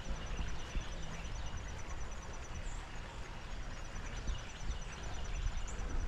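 Creek-side outdoor ambience: a steady hiss of running water with a low rumble, and a faint, rapid, evenly spaced high ticking through most of it.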